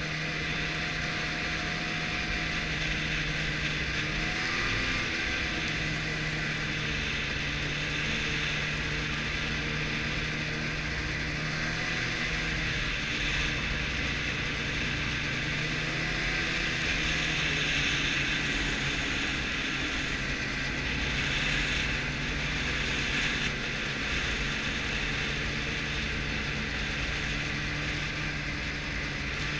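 Arctic Cat snowmobile running at a steady cruising speed. Its engine note holds steady with a few brief rises and dips in pitch, under a constant mechanical clatter.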